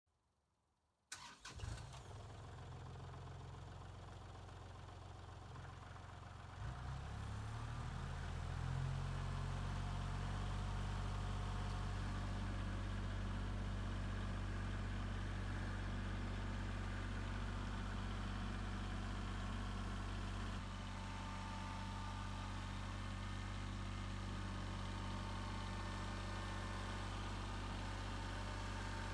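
Kubota compact tractor's diesel engine idling from about a second in, then throttled up with a rising pitch around seven seconds in and running steadily at higher revs.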